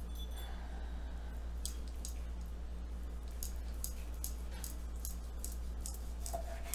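Knife slicing through a cooked pork loin on a wooden cutting board: faint, scattered soft clicks and squishes of the blade through the meat, over a steady low hum.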